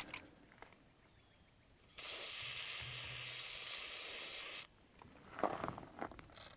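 Aerosol can of white lithium spray grease spraying in one steady hiss of about two and a half seconds, starting about two seconds in, as grease is laid on the weight distribution hitch's spring arms where they seat in the hitch head. Brief faint handling sounds follow about a second later.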